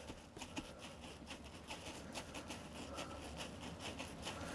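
Faint scrubbing of a wet sponge rubbed over a hardboard backdrop, a quick run of short, uneven strokes.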